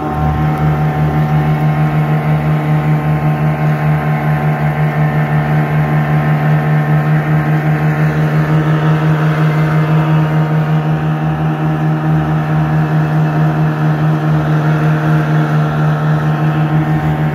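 Small fishing boat's outboard motor running steadily at speed, a constant hum with a regular pulse in its loudness, with water rushing past the hull.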